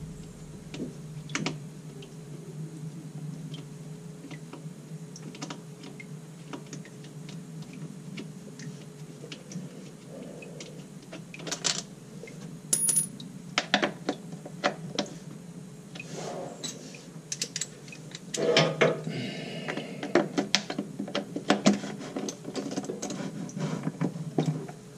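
Scattered metallic clicks and clinks of hand tools on the transmission pan bolts of a ZF 8-speed automatic, growing busier after the first half. Near the end a ratchet with an extension clicks rapidly as it turns a pan bolt. A steady low hum runs underneath.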